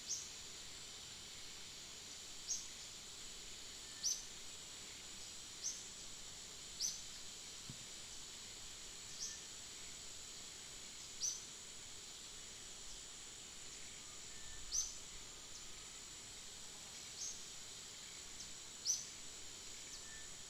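Steady high insect drone, with a short high chirp repeating about every one to three seconds, ten or so in all.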